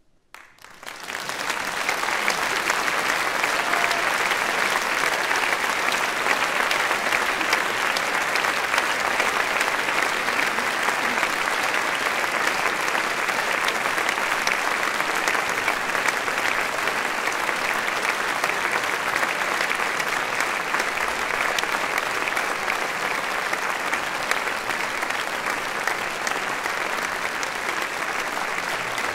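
A large audience in a concert hall applauding: the clapping starts from silence, swells within about two seconds and then holds steady.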